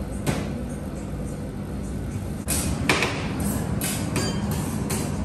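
Metal spatulas scraping and tapping on the steel cold plate of a rolled ice cream station as the frozen yogurt is worked. Several sharp strokes come from about halfway in, over a steady low hum.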